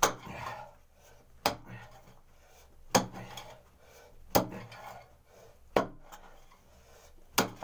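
Short-handled pick striking hard, dry packed earth at the bottom of a hand-dug well, six sharp blows about every one and a half seconds, each followed by a brief rustle of loosened soil.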